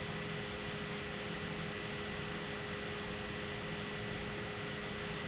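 Steady hiss with a faint electrical hum from a webcam's built-in microphone; no other sound.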